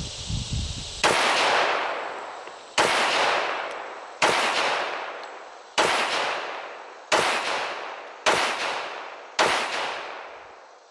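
Para Ordnance 1911 pistol in .45 ACP firing seven slow, aimed shots about a second and a half apart, each followed by a long echo that dies away.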